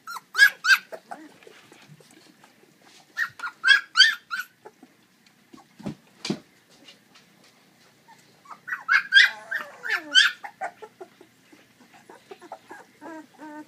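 Young Saint Bernard puppies whining and whimpering in four bursts of short, high-pitched cries, the last one fainter. A sharp knock comes about six seconds in.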